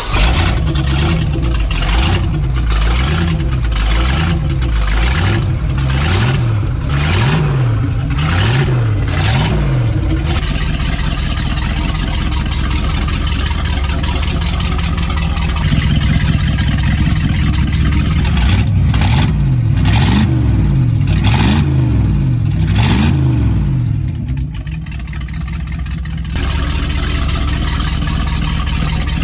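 MerCruiser 5.7 L (350) Magnum V8 marine engine running and being blipped on the throttle over and over, its pitch rising and falling in quick succession. There are two stretches of repeated revving, with steadier running between them.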